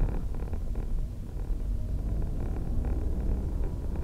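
Tata Altroz's naturally aspirated three-cylinder petrol engine running as the car drives, heard inside the cabin as a steady low rumble mixed with road noise.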